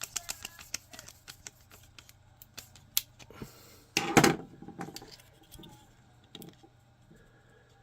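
Hard plastic parts of a 3D-printed action figure being handled and fitted together: a run of small clicks and taps, with a louder clatter about four seconds in.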